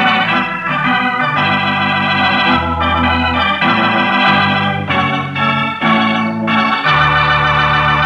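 Organ music playing a closing bridge at the end of the radio drama's story: a run of sustained chords changing about once a second, settling on a long held chord near the end.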